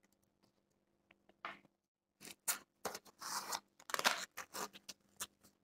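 Cloth blood-pressure cuff being wrapped around an upper arm, its Velcro (hook-and-loop) fastening rasping as it is pressed shut, in a run of short scratchy bursts from about two seconds in.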